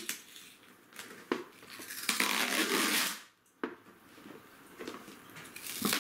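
Brown packing tape being peeled and torn off a package: a long ripping noise about two seconds in, with rustling and a few sharp clicks of the box being handled.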